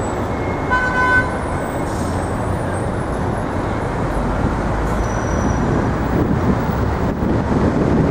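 Steady city street traffic noise, with a short horn toot about a second in.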